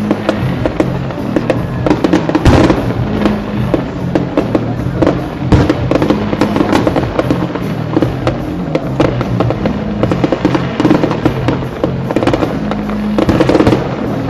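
Fireworks going off in rapid succession, dense bangs and crackling with heavier reports about two and a half seconds in and again near the end, over music playing.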